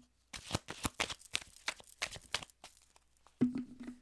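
A deck of tarot cards being shuffled by hand: a quick run of papery riffles and clicks for about two and a half seconds. After a short pause comes a knock about three and a half seconds in, followed by a low steady hum.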